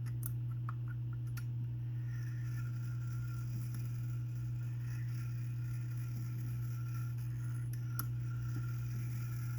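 A steady low hum with a few light clicks in the first second or so and one more click about eight seconds in.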